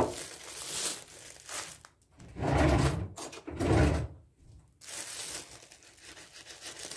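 Plastic bag of sugar rustling and crinkling as it is handled, in several short bursts with two louder ones in the middle.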